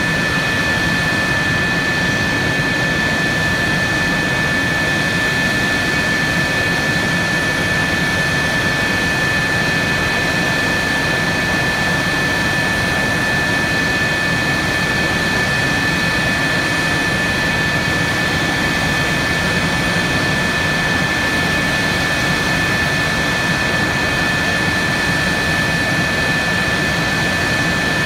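Jet turbine running steadily at idle: a constant rushing noise under an unchanging high whine.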